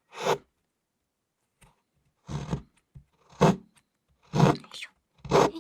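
A bar of chocolate being shaved, with rasping scrape strokes: one, then after a pause four more at about one a second.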